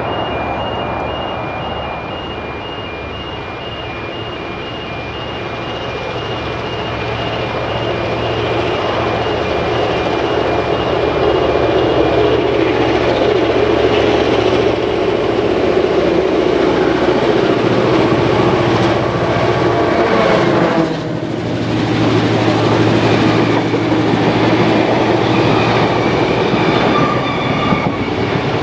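Diesel-electric locomotive 42101's engine running, heard approaching: the drone builds steadily over the first dozen seconds, drops off abruptly about 21 seconds in, then swells again.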